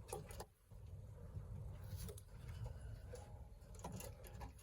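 Faint scratching and rustling over a low rumble, in the quiet of a small room such as a pigeon loft.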